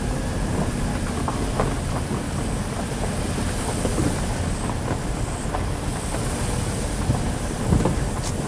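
Car rolling slowly over a rough dirt forest road, heard from inside the cabin: a steady low rumble with scattered knocks and rattles, a couple of louder knocks near the end.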